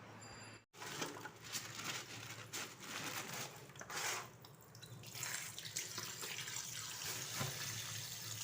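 Kitchen tap running faintly into a sink, with a few light knocks. It cuts out briefly just under a second in.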